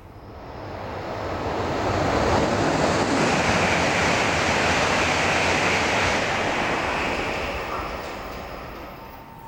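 N700-series Shinkansen passing through a station at high speed without stopping: a rushing roar of air and running gear. It builds over about two seconds, holds for several seconds and then fades.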